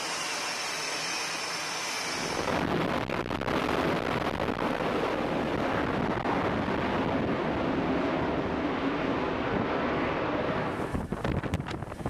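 Carrier jet engines running on the flight deck: first a steady hiss with a high whine, then a jet's loud full-power engine noise as it launches off the steam catapult. Near the end this gives way to a few sharp clanks.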